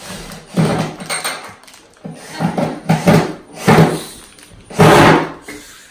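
Plastic packaging of furniture fittings rustling and crinkling as a child digs a handle out of it, in four loud bursts with short pauses between.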